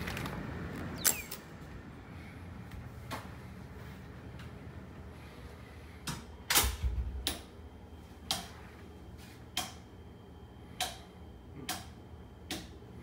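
Hotel room door being opened and closed: a sharp latch click about a second in, then a cluster of clicks and a low thud around six to seven seconds in as the door shuts. After that come single sharp clicks or taps about once a second.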